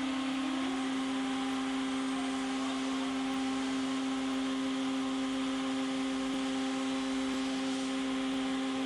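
CNC router running just after being switched on: a steady motor hum made of several constant tones over a hiss. A second tone glides up and settles about half a second in, then the sound holds even.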